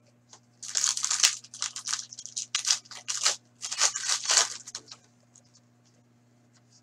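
Foil wrapper of a hockey card pack being torn open and crinkled in the hands, a run of crackling rips that stops about five seconds in.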